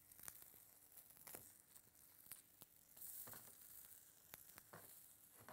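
Eggplant slices sizzling faintly in oil in a stainless-steel frying pan. A handful of light clicks as tongs touch the pan while the slices are turned.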